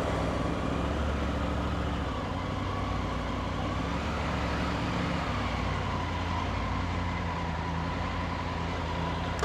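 Triumph Tiger 900 motorcycle's three-cylinder engine running steadily at low revs.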